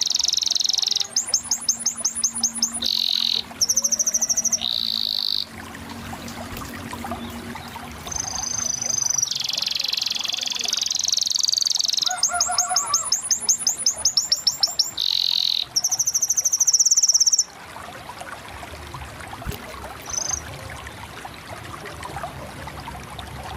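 Canary singing: fast rolls of rapidly repeated high notes alternating with long, high warbled phrases, with short pauses between them and a quieter stretch near the end.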